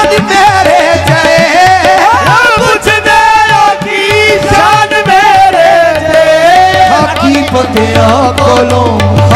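Qawwali-style devotional music: tabla keeping a steady rhythm under a harmonium, with a wavering, gliding sung melody and no clear words.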